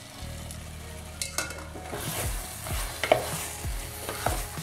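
Pieces of roasted mutton dropped into a thick tomato masala gravy in an aluminium pot, then stirred with a spatula. The masala sizzles while the spatula scrapes and knocks against the pot about twice a second.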